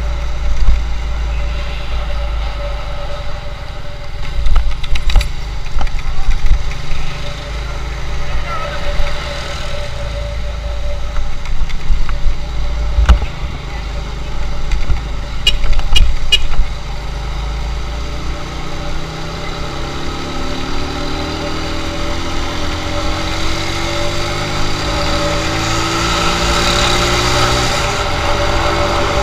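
Motorcycle engine running while riding, with heavy wind buffeting on the microphone in uneven gusts through the first half. In the later part the engine pitch rises several times as the bike accelerates.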